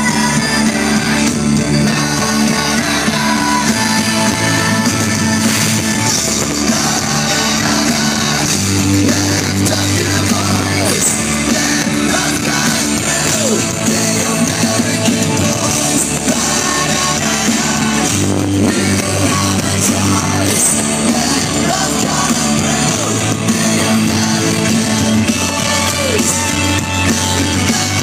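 Rock band playing live and loud, with electric guitars, drum kit and singing.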